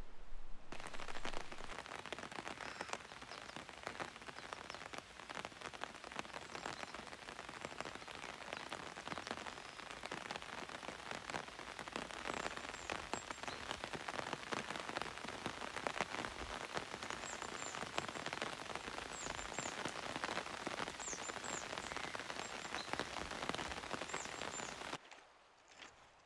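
Rain falling steadily, a dense even patter of drops, with a few faint high chirps in the second half.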